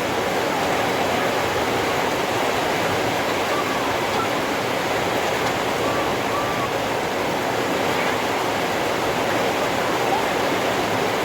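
Heavy rain falling as a steady, even downpour.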